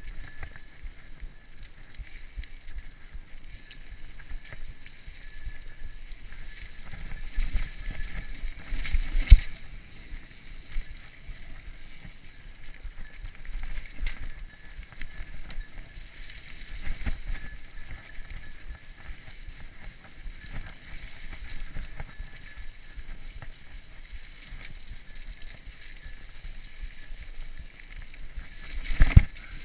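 Mountain bike ridden over a dirt singletrack: tyres on the trail and the bike rattling over bumps, with sharp knocks about nine seconds in and again near the end.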